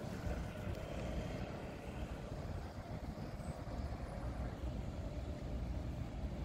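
Road traffic: cars passing on the street, a steady low rumble.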